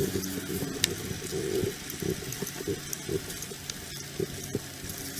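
Steady low hum of a vehicle engine idling, with a few scattered light clicks and handling noises.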